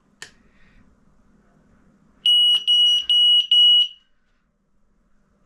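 Carbon monoxide detector sounding its test alarm: four loud, high-pitched beeps in quick succession about two seconds in, the four-beep pattern of a CO alarm, set off by pressing its test button. A light click comes just before.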